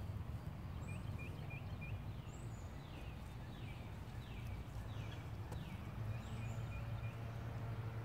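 A songbird singing a run of falling whistled notes, short at first, then longer ones about every 0.7 seconds, stopping about two-thirds of the way through. A few brief high chirps from another bird are heard over a steady low rumble.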